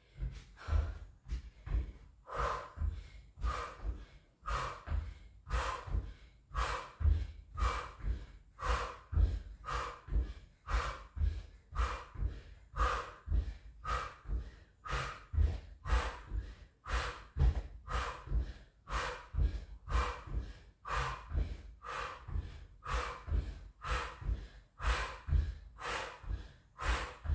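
A woman breathing hard in a steady rhythm through a fast exercise, over a quick even run of soft thuds as her trainers land alternately on an exercise mat on a wooden floor.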